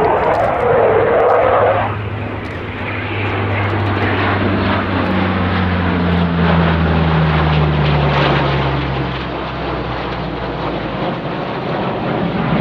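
Low, steady drone of a C-130 Hercules' four turboprop engines and propellers passing overhead, mixed with the rush of the escorting Eurofighter Typhoon jets. About halfway through, the pitch of the drone slides down as the aircraft pass, and the low hum fades near the end.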